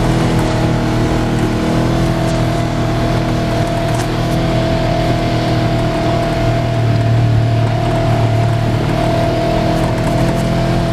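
Side-by-side UTV engine running steadily at trail speed, heard from on board: a continuous drone whose low end swells a little about two-thirds of the way through.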